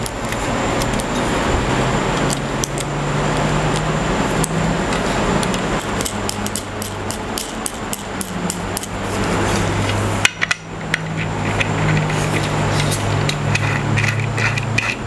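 Packaging wrap being handled, peeled and torn off long router-table stand legs: a steady crinkling rustle with sharp clicks that pauses briefly about ten seconds in, over a low hum.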